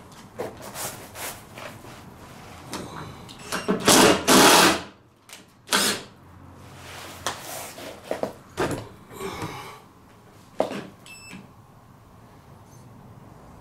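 Hand work on a timber floor: scattered knocks, clicks and handling noises, with a loud scraping rustle about four seconds in.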